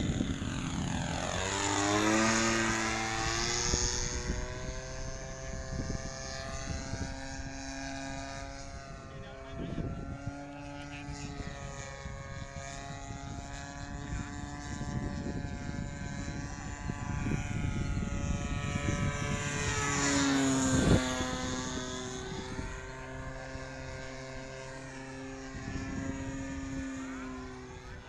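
DLE 20cc single-cylinder two-stroke gasoline engine of an RC model plane (Rans S-20 Raven) in flight. Its note rises and falls in pitch as it passes, loudest about two seconds in and again about twenty seconds in.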